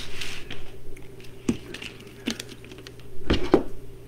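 Hands working wreath materials: scattered light clicks and taps with a brief rustle of deco mesh, the loudest pair of taps near the end, over a steady low hum.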